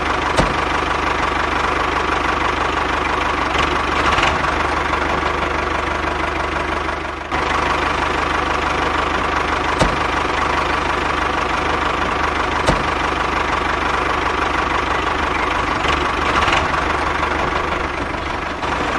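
Miniature DIY tractor running steadily: a continuous engine-like drone with a low pulsing beat and a held whine. There is a brief drop about seven seconds in and a few light clicks.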